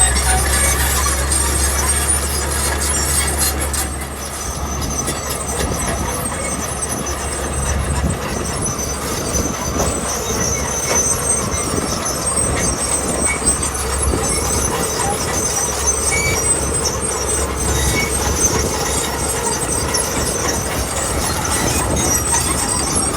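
Heavy earthmoving machinery at work on gravel: a loud, steady low diesel rumble with high metallic squeals coming and going.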